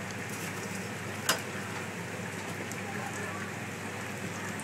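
Hot oil in a commercial deep fryer sizzling, with scattered faint crackles over a steady low hum, and one sharp click a little over a second in.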